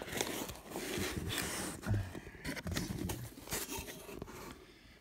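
Cardboard shipping box being opened by hand: irregular scraping and rustling of the flaps and the inner box being slid and handled, with small knocks, growing quieter near the end.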